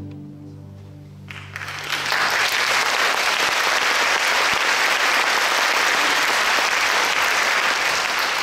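The last low chord of a string orchestra dies away in the hall's reverberation. About a second and a half in, audience applause breaks out and carries on steadily.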